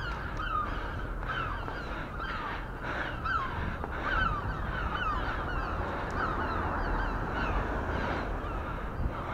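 Gulls calling over and over, a steady run of short, falling squawks, with wind rumbling on the microphone.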